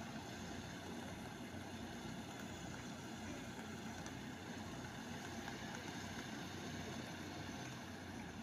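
A fire engine's engine running steadily while it supplies a hose spraying water, heard as an even low hum under a steady hiss.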